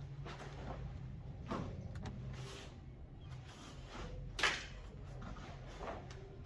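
Swishes and snaps of taekwondo uniforms and bare feet on foam mats as two people perform a poomsae, with a few short sudden sounds, the loudest a sharp snap about four and a half seconds in. A steady low hum runs underneath.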